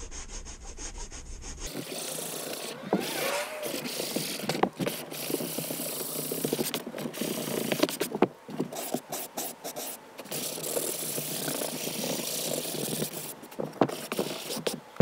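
Hand sanding: coarse sandpaper (120 and 80 grit) wrapped around a piece of wood, rubbed back and forth over a model-aircraft part. A steady rasping with brief pauses between passes.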